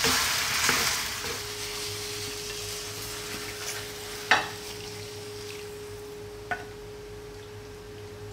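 Tomato-sauced pasta sizzling in a nonstick pan while wooden spoons stir it, the sizzle fading over the first second or two. About four seconds in comes a sharp knock as the pan is tipped onto a ceramic plate, then a lighter tap a couple of seconds later, with a faint steady tone running underneath from about a second in.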